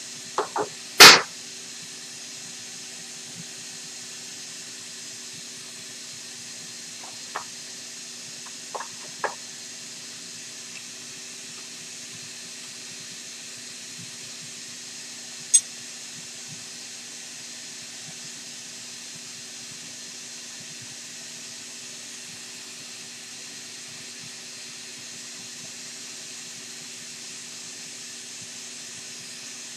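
Wrenches clinking on a CNC router spindle's ER20 collet nut during a bit change: one loud metallic clank about a second in, then a few lighter clicks. Under it runs a steady hiss with a low hum.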